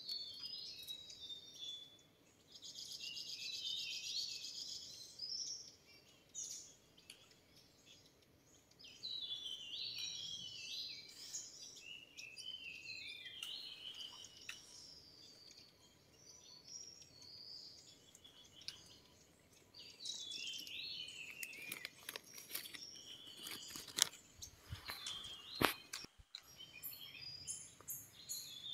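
Forest birds calling: many short chirps and twitters throughout, with a buzzy trill a few seconds in. A few sharp clicks come near the end.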